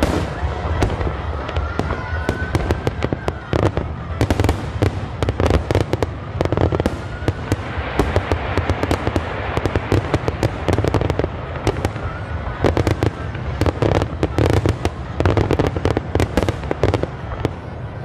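Dense aerial fireworks barrage: rapid, overlapping shell bursts and crackling over a low rumble, with a few faint rising whistles.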